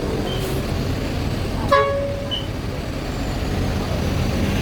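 Steady low engine rumble of buses idling, with one short horn toot a little under two seconds in.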